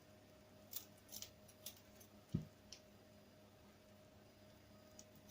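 Kitchen scissors snipping raw chicken wings: a few faint, sharp snips over the first three seconds, with one dull knock about halfway through.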